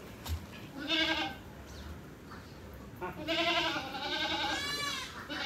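Goats bleating: a short bleat about a second in, then a long bleat from about three seconds in that quavers toward its end.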